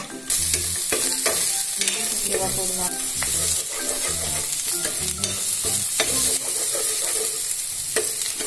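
Ginger-garlic, mustard seeds, urad dal and curry leaves sizzling in sesame oil in a non-stick frying pan, with a steel spoon stirring and scraping against the pan in scattered clicks. The sizzle cuts in sharply just after the start.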